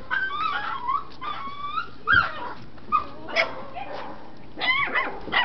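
Puppies whining and yipping in many short, high calls that rise and fall in pitch, with a few short barks among them.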